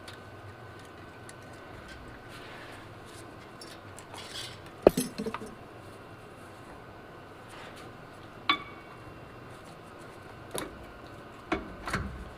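Metal tools and brake parts clinking and knocking as they are handled: a handful of separate sharp strikes, the loudest about five seconds in, one that rings briefly in the middle, and a few more near the end.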